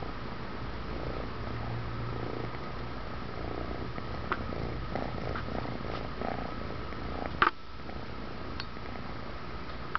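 Kitten purring steadily, close up, with a few light clicks and one sharp click about seven and a half seconds in.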